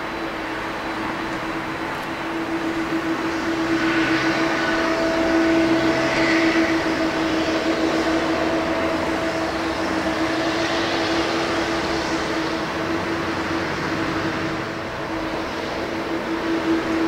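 Boeing 777-200ER's twin turbofan engines running at taxi power: a steady whine that holds one pitch throughout, growing louder about four seconds in.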